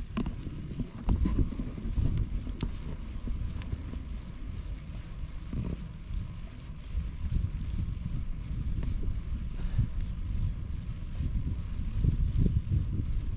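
Steady, high-pitched chorus of crickets, with an irregular low rumble of wind buffeting the microphone underneath.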